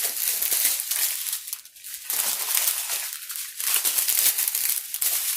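Small plastic bags of diamond-painting resin drills crinkling as they are handled and sorted.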